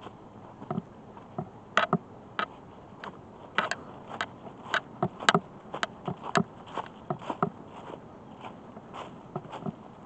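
Footsteps crunching through dry fallen leaves, a string of irregular sharp crunches.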